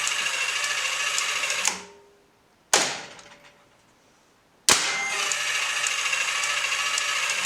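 Hyundai HiAN08 air circuit breaker operating: its spring-charging motor whirs steadily for under two seconds, then a single sharp clack of the breaker mechanism about a second later. The motor whirs again for about three seconds near the end, recharging the spring.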